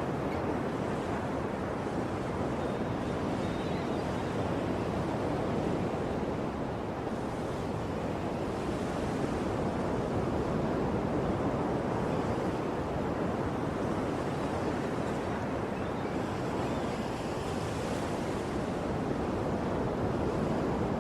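Ocean waves surging and washing on a shore: a steady rushing wash that swells and eases gently.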